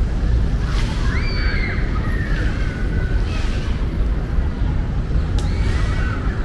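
Steady low rumble of harbor water sloshing and wind on the microphone, with a few short high-pitched cries over it about a second in and again near the end.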